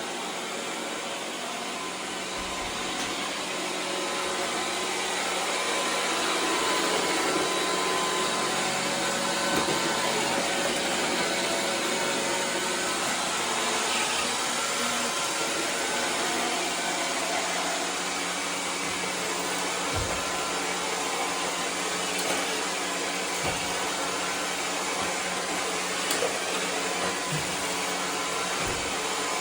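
iRobot Roomba 675 robot vacuum running with a steady whir that grows louder over the first few seconds. A few short low knocks come in the second half.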